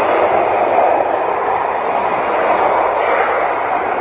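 Jet engines of an Airbus A320 rolling along the runway, a loud, steady roar.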